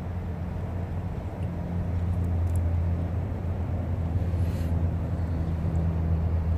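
A motor vehicle engine running steadily, a low drone that grows a little louder about a second and a half in.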